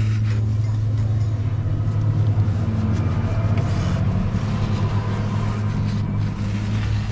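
Steady low engine hum that holds an even pitch throughout.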